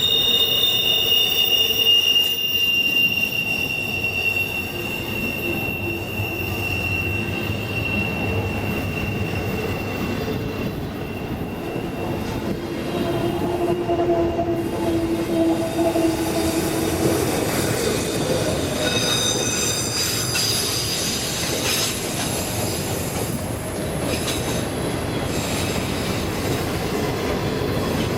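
Freight train cars rolling past with high-pitched steel wheel squeal. A squeal slowly falls in pitch and fades over the first several seconds, and fresh squeals start about two-thirds of the way through.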